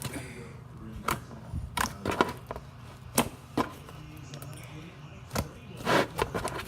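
Stiff, hard slime being kneaded and pressed together by hand, giving sharp irregular clicks and pops as air pockets snap, about eight in a few seconds, the loudest near the end.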